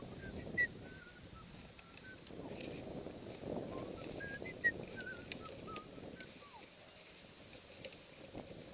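Wind buffeting the camera microphone, with a scattered run of short, high whistle-like notes, two of them louder about half a second and about four and a half seconds in, and one sliding down in pitch near the end; a few faint clicks.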